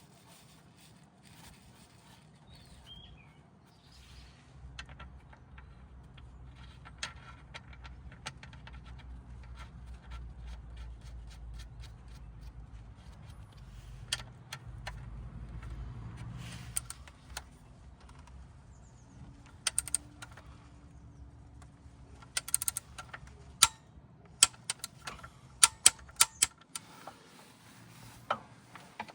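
Metal hand tools clinking and clicking against each other and the differential's plug, with a cluster of sharp clicks near the end. A low steady hum runs through the middle.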